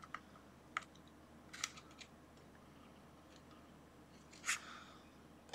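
Faint clicks and crackles of a clear plastic clamshell packaging tray being handled, with a louder crinkle near the end.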